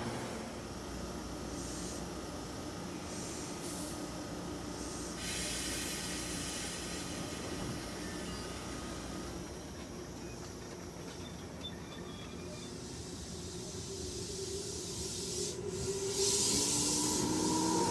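Electric train standing at a station: a steady hiss and hum from its equipment. It grows louder near the end, when a tonal whine comes in.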